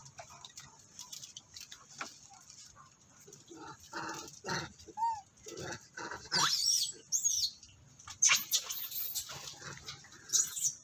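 Macaques giving high, sweeping squeals a little past the middle, among short scuffling and rustling noises.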